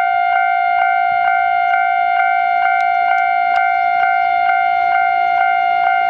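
Japanese railway level-crossing warning bell ringing at a steady beat of about two strokes a second, each stroke over a held ringing tone: the crossing is closed for an approaching train.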